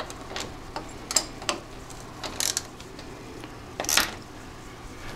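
Ratchet wrench clicking in short, irregular runs, with metal tool clinks, as the idler wheel's mounting bolt on a snowmobile's rear suspension is tightened.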